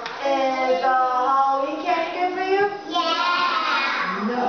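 Several young children singing together in high voices, holding some notes.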